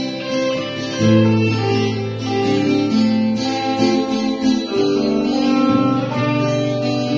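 Live electric guitar and acoustic guitar playing together in an instrumental stretch with no singing, the electric holding sustained notes.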